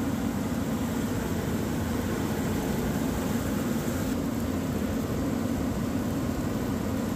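Water well drilling rig running steadily under load while drilling with a down-the-hole air hammer, a continuous deep mechanical din. A little after four seconds in, a gush of water and cuttings blown up from the hole spills out of the discharge pipe.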